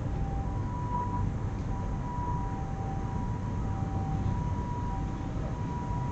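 Steady low rumble of background noise with no sharp knocks, and two faint high tones that come and go every second or so.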